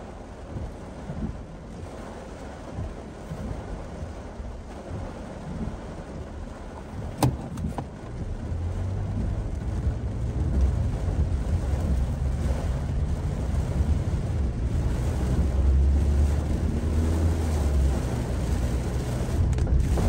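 Heavy rain on a moving car, heard from inside the cabin, over tyre and road rumble on a soaked road. The low rumble grows louder about eight seconds in, and there is one sharp click a little past seven seconds.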